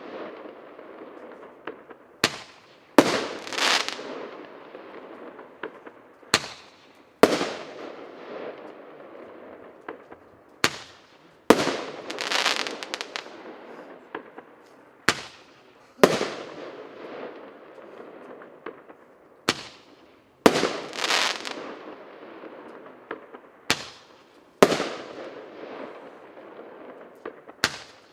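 Khokhloma Roman candle firing shot after shot: sharp reports, mostly in pairs under a second apart, recurring about every four seconds, each trailed by a crackle that fades out.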